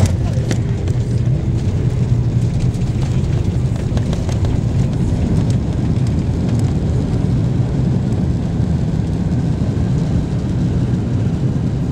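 Steady low rumble of engine and rolling noise inside an Airbus A330-200's cabin as the airliner moves along the ground, with a few rattles near the start.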